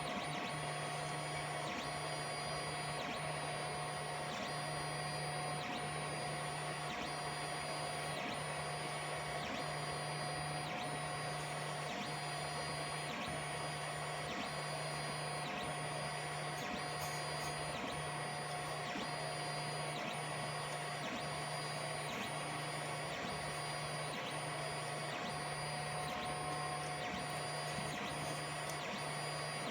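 3D printer's stepper motors running with a steady whine. A lower hum cuts in and out about once a second as the print head sweeps back and forth.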